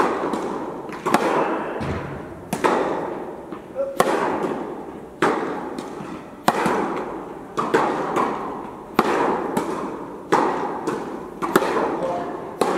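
Tennis balls struck back and forth by racket strings in a baseline rally, with the balls bouncing on the court: sharp pops about every second and a quarter, each ringing on in the echo of an indoor tennis hall.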